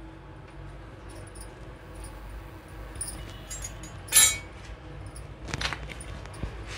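A few light metallic clinks over a faint steady kitchen background, the loudest about four seconds in.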